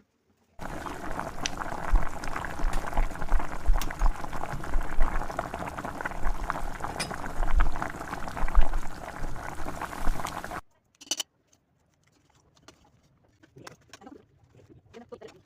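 Buttermilk kadhi boiling in a pot, thick bubbles popping continuously, cutting off suddenly about ten seconds in.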